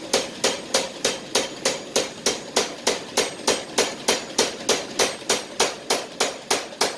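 Hammer blows on steel in a fast, very even rhythm of about three strikes a second, each with a short metallic ring.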